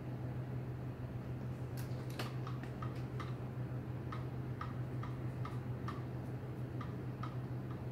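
Regular ticking, about three short, sharp ticks a second, starting about two seconds in, over a steady low hum.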